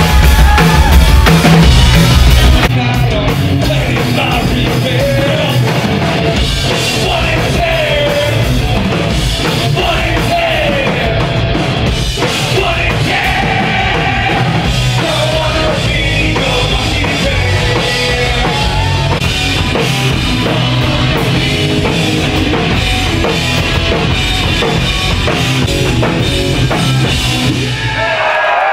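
Hard rock band playing live through a club PA: pounding drum kit, electric guitar and bass under a singer's voice. The song stops just before the end.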